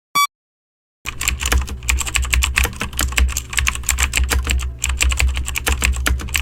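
A short electronic beep, the last of a series about a second apart, then from about a second in a fast run of computer keyboard typing, key clicks over a steady low hum.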